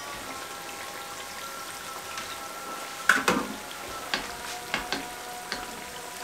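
Hot oil sizzling softly on freshly deep-fried puff pastry samosas, with scattered crackles and a few sharper pops.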